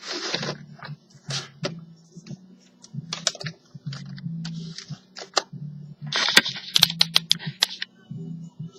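Laptop being handled: scattered plastic clicks and taps from its case and keys, with a denser run of clicks about six to seven and a half seconds in.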